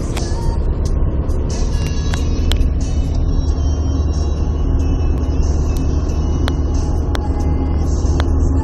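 Cabin noise of a Suzuki Wagon R+ on the move: a steady low engine and road drone, with scattered small clicks and rattles.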